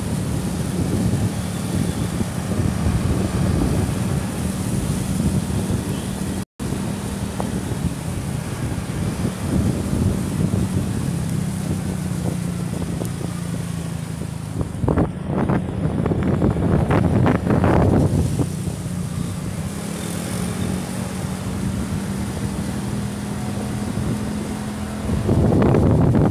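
A vehicle's engine humming steadily while driving along a town road, with wind buffeting the microphone. The wind gusts louder for a few seconds about halfway through and again near the end, and the sound drops out for an instant about six seconds in.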